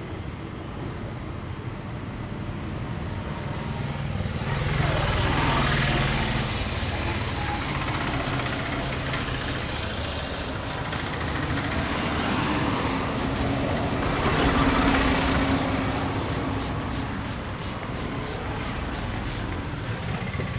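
Street traffic, with motor vehicles passing by. Engine noise swells twice, about five seconds in and again near fifteen seconds.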